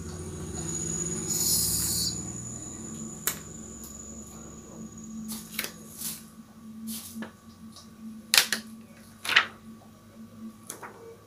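Heat-transfer vinyl on its plastic carrier sheet crackling and crinkling as it is handled, in a string of irregular sharp clicks, the loudest two about a second apart near the end. A short hiss about a second in.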